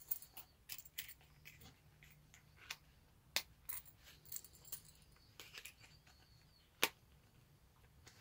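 Small scattered clicks and taps from a leather business card holder being handled and folded back into a card stand, with one sharper click about two-thirds of the way through.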